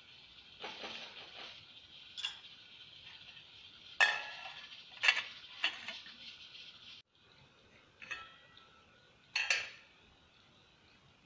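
Plastic spatula stirring and scraping in an aluminium cooking pot, then a metal pot lid clanking against the pot rim: several sharp clanks about four to five and a half seconds in, and two more near the end.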